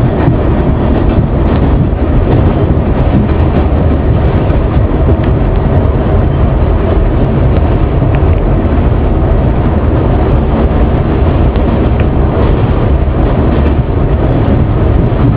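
New York City Subway 7 train running on elevated track, heard from inside the car: a loud, steady rumble of the moving train with a few faint clicks.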